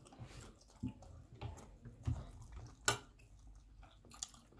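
Quiet eating sounds: a few sharp clicks of spoons and forks against plates, the loudest about three seconds in, with soft chewing.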